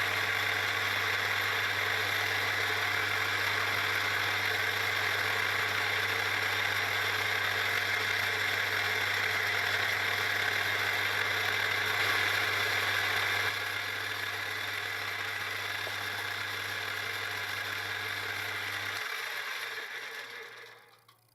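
Milling machine spindle running steadily with a low hum while a countersink is taken down into holes in an aluminium part. About 19 s in the motor is switched off and the spindle winds down.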